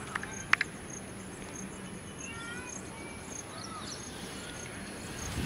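Outdoor ambience of insects chirping in a steady, pulsing rhythm and birds giving short calls, with two sharp clicks about half a second in.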